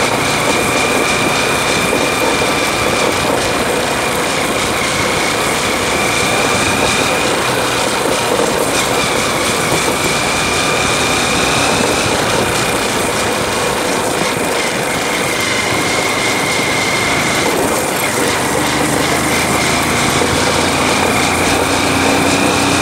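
Motorcycle being ridden at road speed: a steady engine note with a high whine above it, under loud rushing wind and road noise. The engine note rises slightly near the end as the bike picks up speed.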